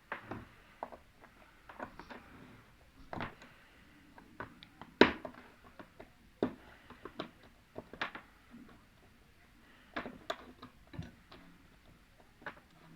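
Irregular clicks and knocks of the plastic and metal parts of an LED TV panel being handled and pried apart during disassembly, the loudest knock about five seconds in.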